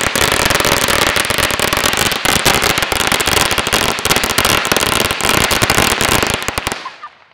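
A string of firecrackers going off on pavement: a loud, rapid, unbroken run of cracks that stops suddenly near the end.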